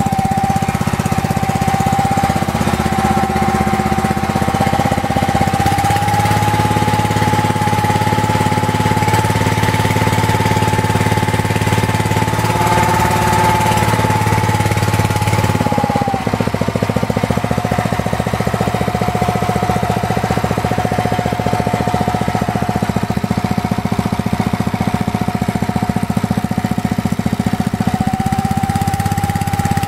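Small petrol engine running steadily on methylated spirits, with a whine above the engine note. The running note shifts about six seconds in, and the whine dips in pitch around sixteen seconds in.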